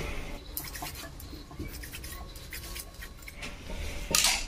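Cotton cloth strips being handled: faint rustling and a few light knocks, with a louder brief rustle about four seconds in.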